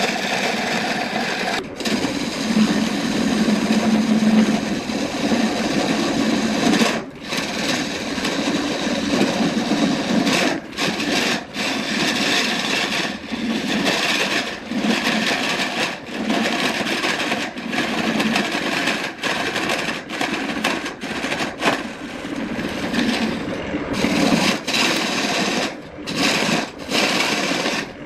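Wood lathe running with a tool working the spinning wood: a continuous scraping hiss over the motor's steady hum, broken by many brief pauses where the tool lifts off the work.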